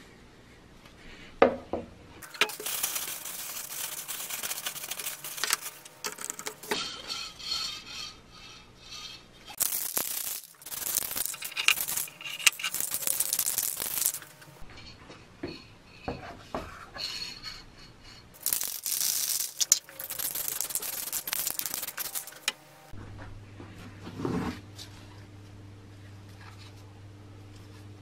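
Aerosol spray paint can hissing in three bursts of a few seconds each, with short clicks and clatter between them. Near the end comes a single knock over a low steady hum.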